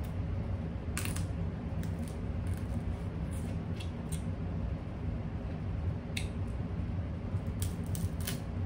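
Crab leg shells cracking and snapping as they are pulled apart by hand, about a dozen short sharp clicks scattered over a steady low background hum.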